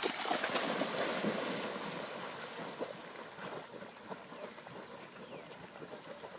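Water splashing and lapping around a swimming puppy, busiest in the first two seconds and then settling to a lighter splashing.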